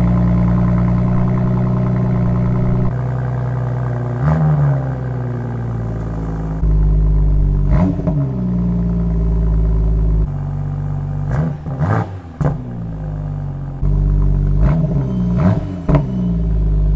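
BMW M440i's B58 turbocharged straight-six through a GRAIL aftermarket exhaust silencer with the exhaust flaps open, idling at standstill with about eight short throttle blips in which the revs rise and fall quickly. Several come in quick succession near the middle and near the end.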